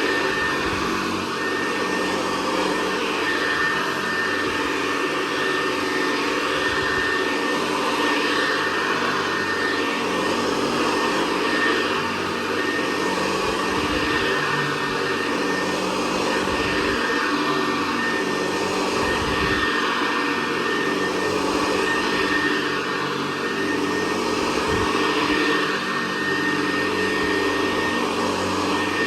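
Hoover Convertible Model 68 direct-air upright vacuum cleaner running steadily while vacuuming, a constant high whine over a lower motor hum, with a few brief low bumps.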